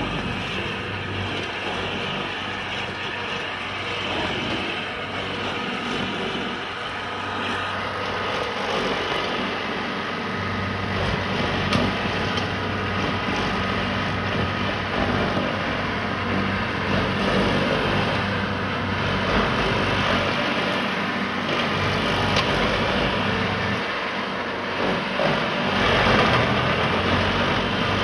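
Vermeer tracked stump grinder running at working speed, its cutter wheel chewing down a tree stump. A steady engine hum under a wide, rough grinding noise that swells and eases a little as the wheel bites.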